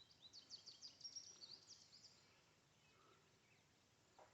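Faint songbird chirping: a quick run of short, high chirps during the first two seconds, then only a quiet outdoor background.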